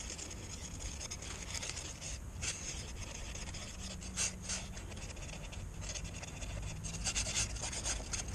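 Epoxy being spread by hand over a part: a continuous run of uneven rubbing and scraping strokes.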